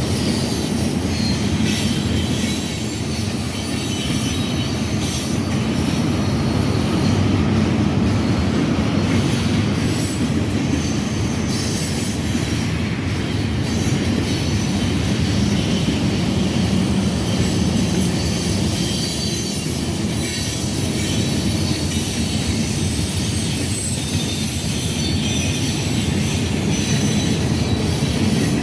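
Freight train cars rolling past with a steady low rumble, the wheels squealing high-pitched on and off over the rail clatter.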